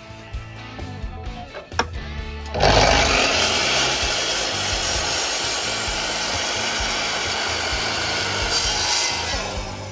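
Miter saw starting suddenly about two and a half seconds in and crosscutting a wooden board, a loud steady cutting noise that eases off near the end. Before it, light guitar music.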